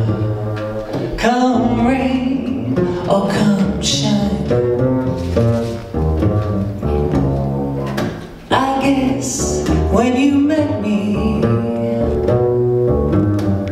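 A woman singing a slow jazz ballad into a microphone, accompanied only by a plucked upright double bass.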